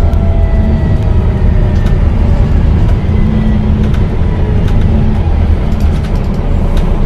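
Volvo B9TL double-decker bus running with a steady, loud low rumble, with a faint whine that drifts slowly in pitch over it and a few light clicks.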